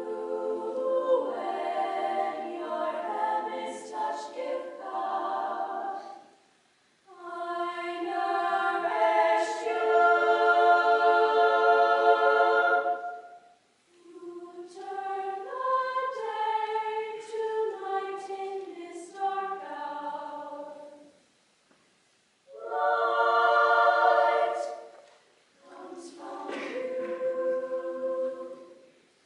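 Women's choir singing a cappella in several sung phrases, each separated by a short pause for breath.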